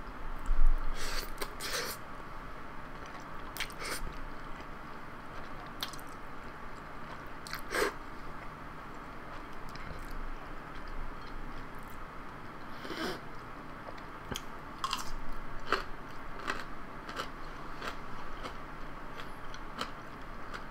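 Close-up chewing of jajangmyeon noodles, with wet mouth clicks and smacks scattered throughout. A brief thump comes about half a second in.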